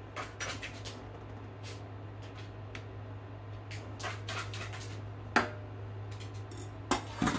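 Crisp lettuce leaves being pulled and snapped off the head, a scattered crackling and tearing, with a sharp click about five seconds in and a couple more near the end, over a steady low hum.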